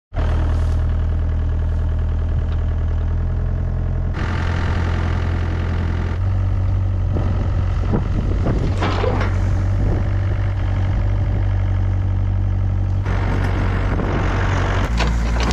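Small-brand Chinese 1004 tractor running under way, a steady engine and drivetrain drone whose note shifts a few times. The tractor's rear axle is known to be loud.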